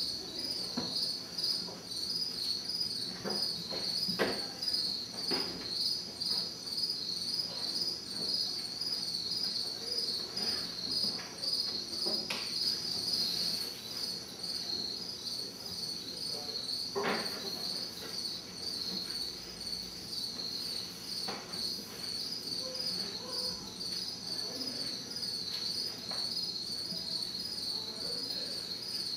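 Crickets chirping in a steady, rapid pulse, with a few separate knocks about 4, 12 and 17 seconds in.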